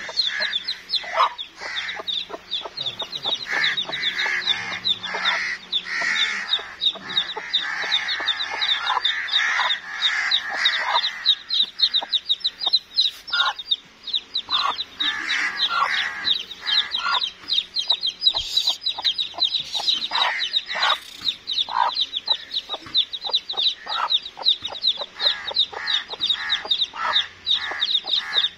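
Domestic chicks peeping rapidly and without pause, with a hen clucking in clusters of calls over them.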